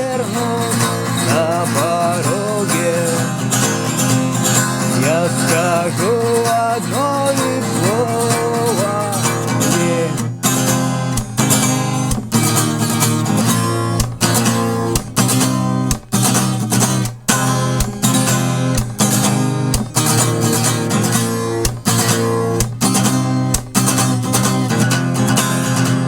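Acoustic guitar music, strummed chords. In the second half the strokes turn sharp and clipped, with brief stops between them.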